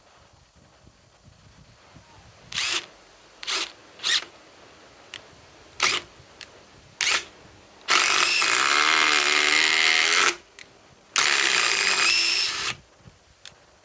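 DeWalt XR DCF845 brushless impact driver driving a 6-inch T30 lag screw into wood: several short trigger bursts to start the screw, then two long runs, the second shorter, with the motor pitch wavering as the impacts hammer the screw in.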